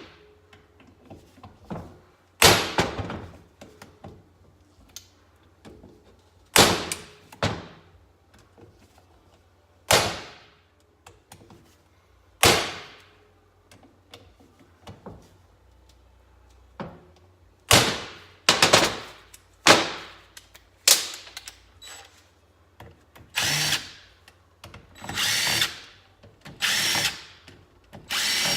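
Sharp metal-on-metal hammer blows on a hand impact driver loosening the Phillips bolts of a Kawasaki KE100 engine cover, a single strike every few seconds, then a quicker cluster. Near the end come several short bursts of a power tool run one after another, as the loosened screws are backed out.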